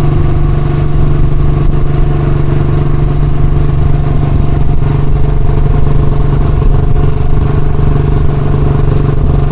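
Royal Enfield Classic's single-cylinder engine running steadily with an even, fast pulse from the exhaust, holding one speed with no revving.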